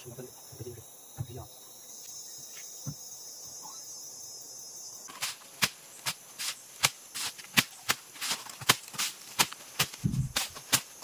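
Rapid sharp knocks, about three a second, begin about five seconds in and keep an even pace. Before them insects chirr steadily, with faint voices at the start.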